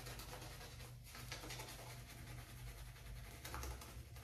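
Shaving brush working soap lather onto skin: faint, quick, scratchy rubbing strokes of the bristles.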